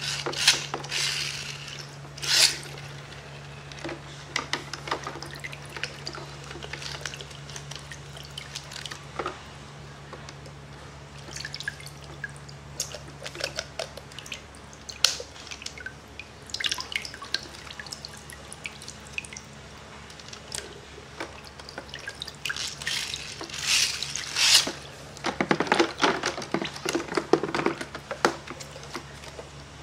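Water splashing and dripping in a shallow tub as plastic wind-up bath toys are handled and set paddling, with irregular small splashes and clicks, busiest near the start and again near the end.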